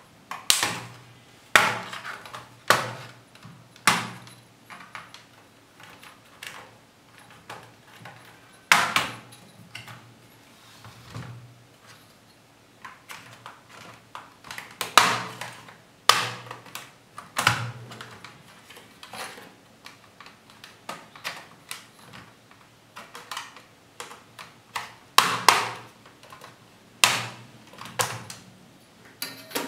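Plastic retaining clips of an Asus X441U laptop's top case snapping loose one after another as the palmrest deck is pried up with a flat metal ruler, with knocks and rattles of the plastic shell in between. The sharp snaps come in irregular clusters a few seconds apart.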